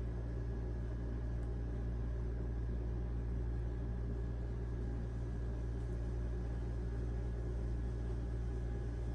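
Steady low hum of background noise, unchanging throughout, with no clicks or handling sounds.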